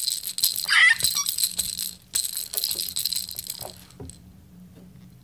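Baby's hand-held toy rattle shaken in quick rattling bursts, with a short high squeal about a second in. The rattling stops at about four seconds.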